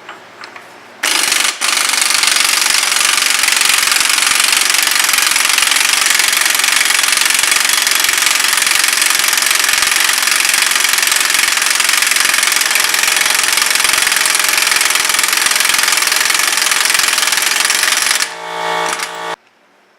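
Air impact wrench hammering on a car's axle nut through a 35 mm socket to break it loose, a steady rapid rattle that goes on for about seventeen seconds. Near the end it changes to a shorter, steadier whir, then stops.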